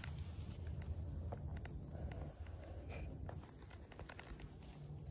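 Insects in the woods, crickets or katydids, keeping up a steady high-pitched drone, with scattered soft ticks and snaps under it and a low rumble.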